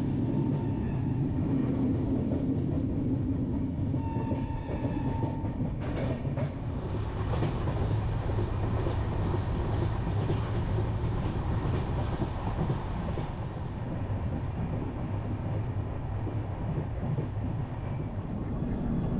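Long-distance Indian sleeper train running, a steady rumble of the carriage and wheels on the rails heard at an open carriage door, with a few brief knocks partway through.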